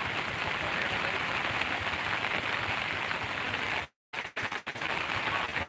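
Heavy rain and floodwater flowing across the road, a steady rushing noise. About four seconds in the sound cuts out abruptly and comes back in choppy fragments, a recording dropout.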